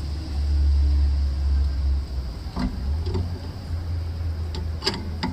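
A steady low rumble with a few sharp metallic clicks, typical of a wrench working the nut that holds the rear brake drum of a VW Fox while the hub is tightened to take up wheel play.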